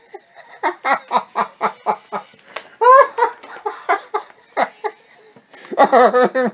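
A man laughing helplessly in quick rhythmic bursts of about five a second. There is a loud high-pitched whoop of laughter about three seconds in and another loud burst near the end.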